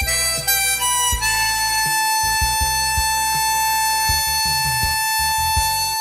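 Harmonica playing a melody over low accompaniment. After a few short notes it holds one long note from about a second in until near the end.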